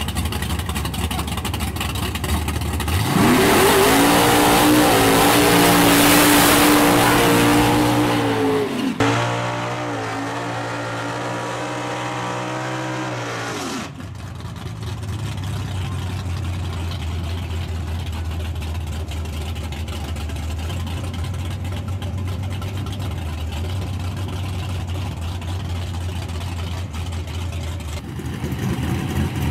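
Small-tire drag car's engine revving up sharply about three seconds in and held high through a burnout, with the spinning rear tyres adding a loud rushing noise. It comes off the throttle about fourteen seconds in and settles to a steady low idle.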